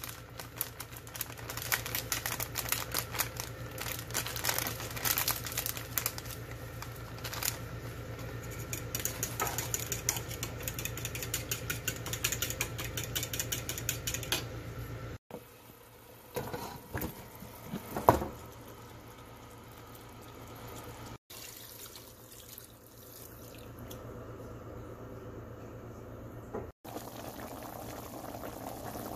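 A metal spoon stirring liquid seasoning in a bowl, with many quick clinks and scrapes over a steady low hum, for about the first half. After a few cuts, a pot of chicken curry simmers and bubbles near the end.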